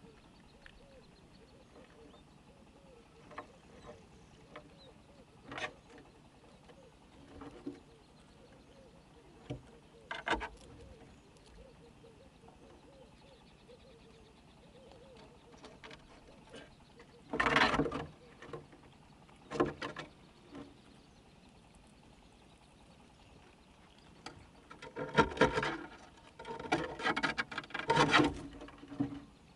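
Squirrels feeding at a wooden feeder box, making short bursts of scratchy rustling and scrabbling among the nuts and corn. The loudest bursts come a little past halfway and again in the last few seconds.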